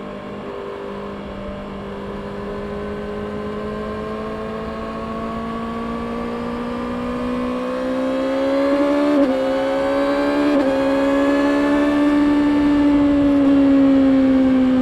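Stock-exhaust 636 cc inline-four engine of a 2024 Kawasaki Ninja ZX-6R running, its note climbing slowly and getting louder. It has two brief stutters in the middle, then the pitch eases slightly down near the end.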